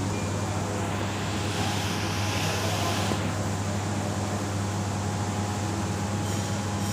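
Gree floor-standing air conditioner running: a steady rush of fan air over a constant low hum, with a brief brighter hiss about two seconds in.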